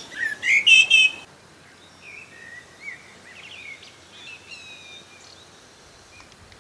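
New Zealand bellbird singing close by: a short phrase of clear, ringing notes that cuts off suddenly just over a second in. After that, only faint, scattered birdsong over a quiet background.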